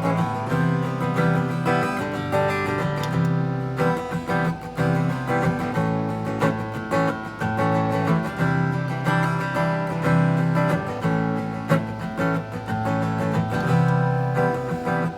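Instrumental passage of a song played live, led by strummed acoustic guitar with sustained low bass notes underneath.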